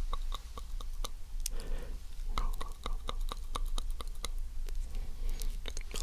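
Close-up ASMR mouth sounds: quick wet tongue and lip clicks, about four or five a second, with a brief soft breathy whisper around two seconds in.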